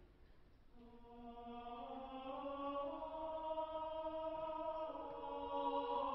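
Background music: a choir chanting in slow, long-held notes, with several voices sounding together. A new phrase comes in about a second in and swells steadily louder.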